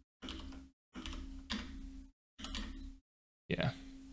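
Computer keyboard keys tapped in short runs of clicks over a steady low hum. The sound cuts out to dead silence several times between runs.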